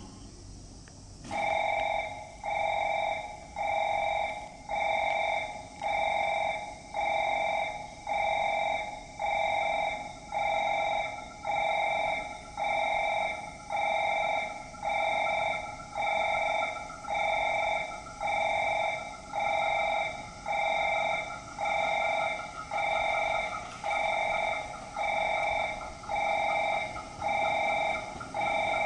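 Station platform train-approach warning: an electronic chime pulsing about once a second, signalling that a train is approaching the platform. A fainter wavering whine joins about ten seconds in and grows a little.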